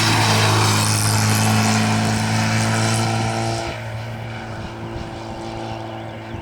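Rally car engine running hard at steady high revs as it passes. A little under four seconds in it turns quieter and duller as the car moves away.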